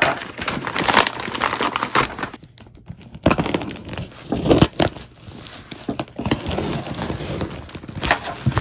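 Brown paper and plastic parcel wrapping being torn and crumpled by hand as a package is unwrapped: irregular crinkling and ripping, with a short lull about two and a half seconds in.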